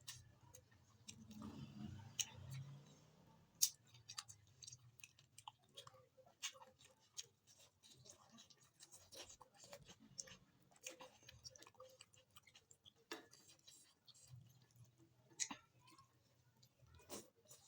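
Close-up eating sounds: soft chewing with irregular small wet mouth clicks and smacks, a few of them sharper.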